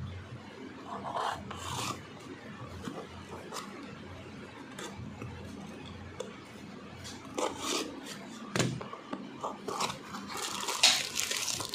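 Cardboard parcel being opened by hand: packing tape slit and peeled, and the cardboard flaps scraped and pulled open, a run of short rasps and rubs with a longer, louder rasp near the end.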